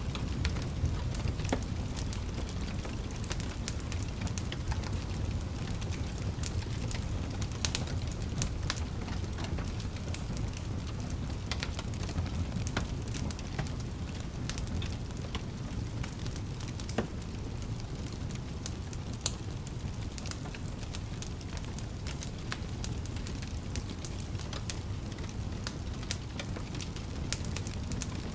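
Fire in a fireplace crackling, with frequent irregular sharp pops and snaps over a steady low rumble.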